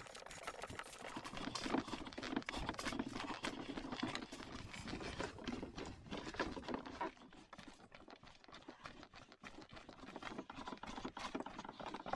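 Footsteps crunching on dry leaves and forest floor along a trail, an irregular patter of steps from someone walking with a canoe carried overhead; the steps grow quieter for a few seconds past the middle.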